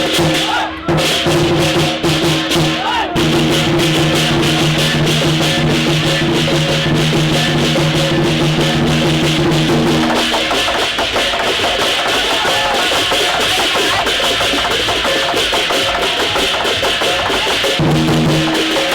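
Music with a steady beat: drums and shaker-like percussion under held low chords. The held chords drop out about ten seconds in, leaving the percussion, and return near the end.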